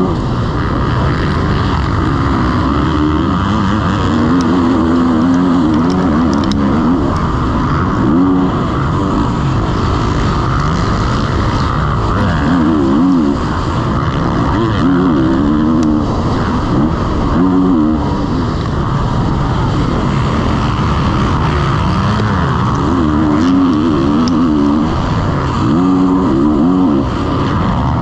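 Motocross bike engine heard close up from the bike itself, racing round a dirt track. The revs rise and fall again and again as the rider accelerates, shifts and backs off through the corners.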